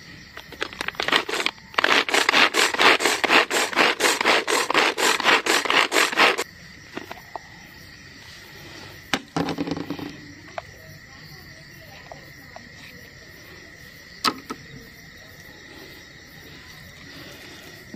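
Hand-operated food chopper being worked in quick, even strokes, about five a second, for roughly four and a half seconds, mincing raw chicken. A couple of single knocks follow later, over a steady high cricket chirr.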